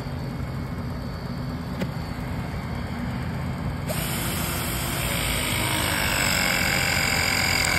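A battery-powered pipe press tool starts its cycle about halfway in, crimping a press fitting onto a copper water line: a motor whine over a hiss that grows louder as it works and falls slightly in pitch. A steady low hum runs under it throughout.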